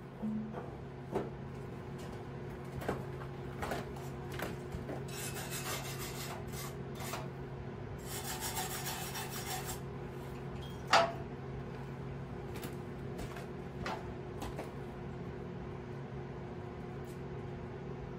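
MIG welder arc on a cast iron drill press table, sizzling in two short bursts of about two seconds each, a few seconds apart: small spots being filled, a little at a time to keep the cast iron from getting too hot. A steady hum runs underneath, with scattered clicks and one sharp click just after the second burst.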